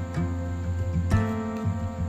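Background music played on plucked guitar, with sustained chords and new notes struck every second or so.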